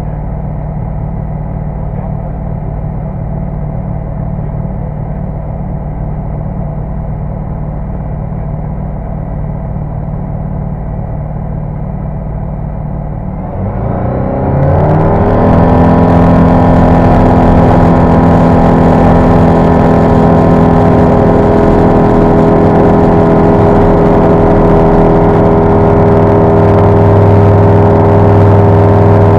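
Flight Design CTSW light aircraft's Rotax 912 four-cylinder engine and propeller, heard inside the cockpit. It runs steadily at low power while lined up on the runway, then about halfway through the throttle opens and it rises quickly to full takeoff power, holding steady and loud through the takeoff roll.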